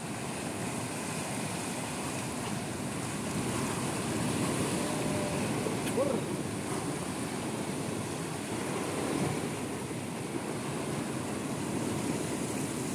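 Sea surf washing and breaking against a rocky shore: a steady rushing noise that swells a little now and then.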